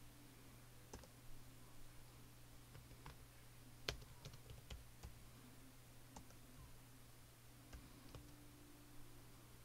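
Faint, scattered computer keyboard keystrokes, one sharper click about four seconds in, over a steady low hum.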